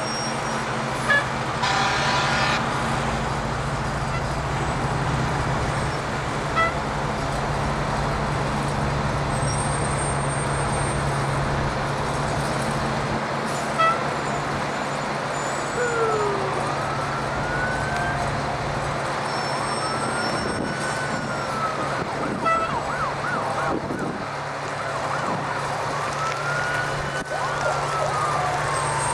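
Fire trucks driving slowly past in a line, their engines making a steady low drone. About two seconds in a truck's air horn sounds for about a second, and from about halfway on sirens wail, rising and falling in pitch.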